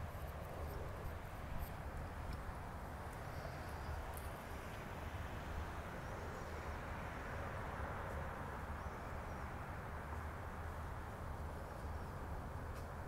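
Steady outdoor hum of distant road traffic over a low rumble, swelling slightly about seven seconds in, with a few faint high chirps and clicks.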